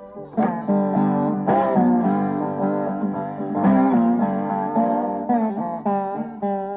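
Background music on acoustic guitar: picked notes and strummed chords that ring out, with a strong strum about half a second in and again near the middle.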